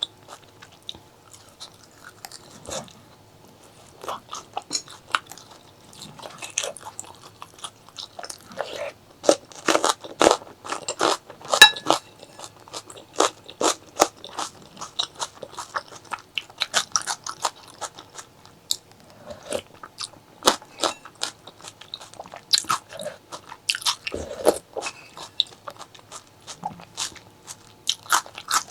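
A person eating close to the microphone: chewing with crisp crunchy bites and wet mouth clicks in an irregular patter, busiest about a third of the way in.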